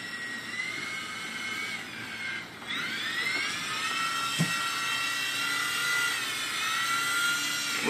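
Blade mCX2 micro coaxial RC helicopter's electric motors and rotors whining. The whine dies away about two and a half seconds in, then rises again as the rotors spin back up, and it holds steady while the helicopter flies. A short light knock comes about four and a half seconds in.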